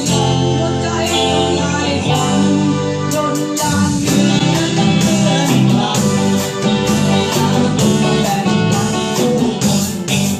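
A band of electric guitars, keyboard, bass and drums playing a luk thung song. The first few seconds are held chords, and the drums come in with a steady beat about three seconds in.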